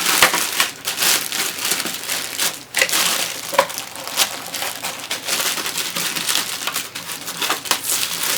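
Packaging crinkling and rustling in irregular crackly bursts as an item is unwrapped and handled by hand.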